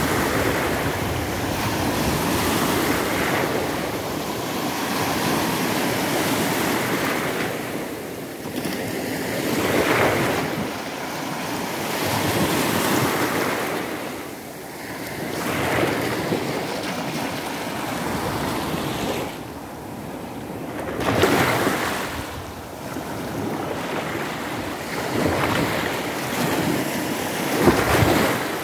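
Baltic Sea surf: small waves breaking and washing up the sand. The rush of water swells and fades every few seconds.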